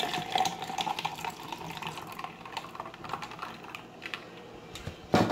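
Frothy cabbage juice poured from a glass bowl into a glass of ice cubes: liquid splashing over the ice with a dense crackle of small clicks that thins out after about two seconds. A sharp knock near the end.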